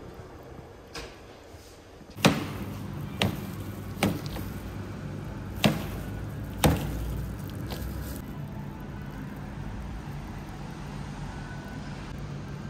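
A faint tap, then five sharp knocks about a second apart, the first the loudest, over a steady low hum.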